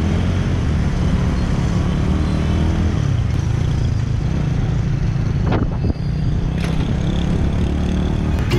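Ride through dense city traffic on a small manual motorbike: its engine running steadily among the rumble of surrounding motorbikes and cars. A brief sharp sound breaks in about five and a half seconds in.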